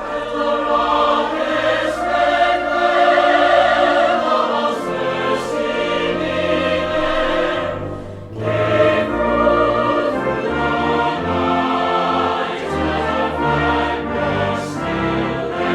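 Background music: a choir singing over an orchestra in a grand, classical style, with a brief drop about eight seconds in.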